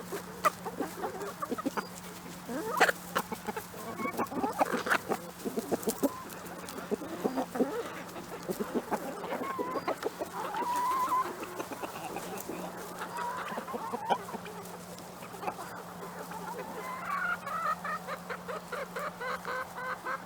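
Flock of backyard chickens clucking while they feed, with many short sharp clicks, under a faint steady low hum.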